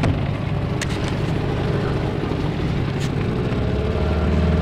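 Gladiator 9.8 outboard motor running under way while it is being run in, steady at first, then getting louder about four seconds in as the throttle opens.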